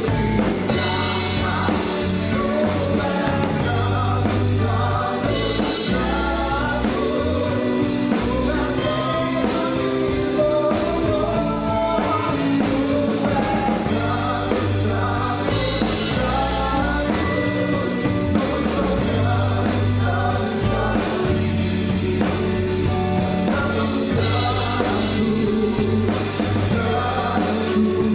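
Live worship band playing with singing: a drum kit, bass guitar and keyboard behind lead vocals, steady throughout.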